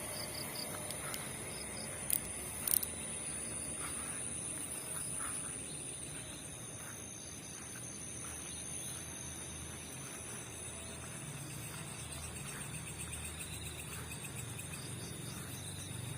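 Crickets and other insects chirring steadily in high tones, with a faster pulsing trill among them. Two sharp clicks sound about two and three seconds in.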